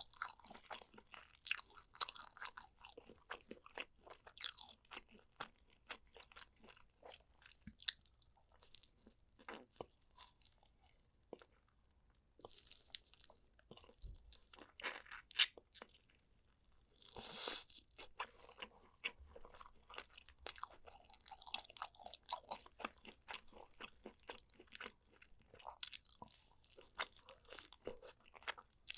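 Chewing and biting into spicy braised pork back ribs: a steady run of short crunches and mouth sounds. There is a lull about eleven seconds in and a brief rush of noise a little past halfway.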